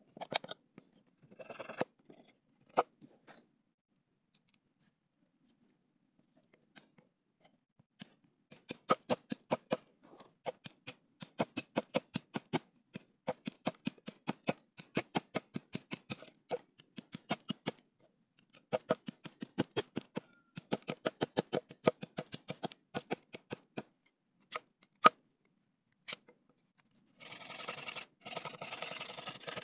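Large knife blade shaving a wooden stick to a point: quick runs of short, sharp scraping cuts with brief pauses between runs. Near the end a louder steady noise starts.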